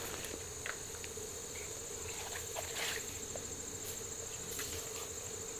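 Insects trilling steadily in a high pitch, with a few faint rustles and ticks of handling.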